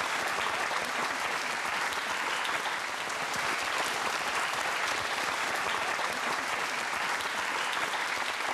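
Studio audience applauding steadily: sustained, dense clapping.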